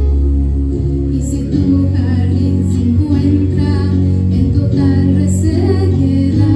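A woman singing into a microphone over an instrumental accompaniment that holds long low notes.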